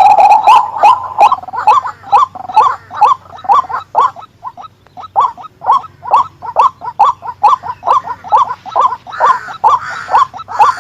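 White-breasted waterhen calling: a long series of short, repeated call notes, about two or three a second, with a brief lull partway through.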